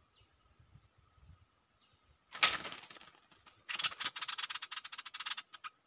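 A sudden loud clack as a wild bird drops into a wire trap cage beside a decoy bird, followed by about two seconds of rapid wing fluttering and rattling against the cage wire.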